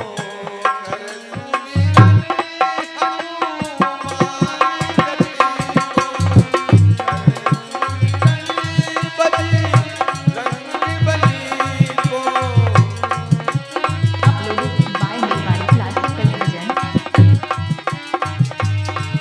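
Live Rajasthani devotional bhajan music: a dholak drum beating a steady rhythm under a harmonium melody and a man's singing voice.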